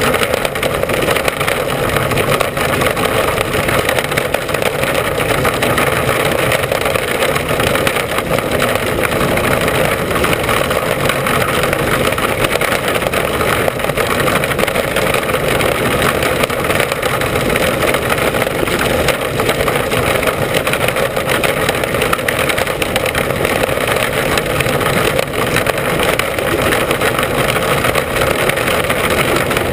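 Mini Sprint race car's engine running hard at racing speed, heard from the in-car camera: a loud, steady din with no let-up.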